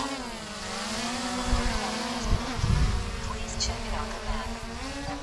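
DJI Mini 3 Pro drone's propellers buzzing as it hovers. The pitch dips just after the start, holds steady, and rises slightly near the end, with a burst of low rumble about two and a half seconds in.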